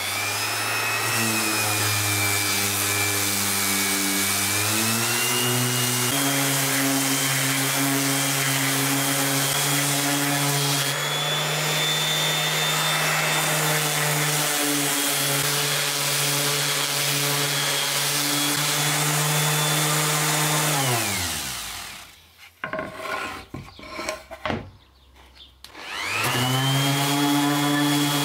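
DeWalt DWE6423 random orbit sander running steadily on reclaimed pine boards: motor hum with the rasp of the abrasive pad on the wood. About three-quarters of the way through it is switched off and winds down, and a few quieter seconds later it starts again and spins back up to speed.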